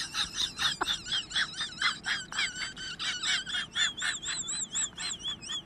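Small bird chirping rapidly and high-pitched, about four to five notes a second, turning into a continuous warbling trill about four seconds in.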